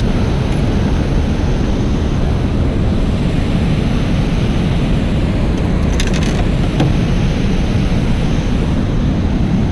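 Steady rush of churning water from a spillway pouring into the tailwater around a small boat, mixed with wind buffeting the microphone.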